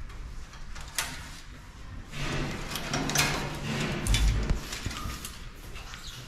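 Rustling and knocking handling noises, with a sharp click about a second in and a dull thump around four seconds in.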